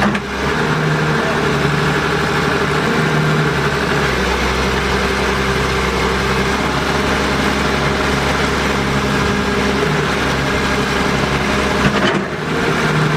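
Heavy excavator's diesel engine running steadily at idle, with a brief break near the end.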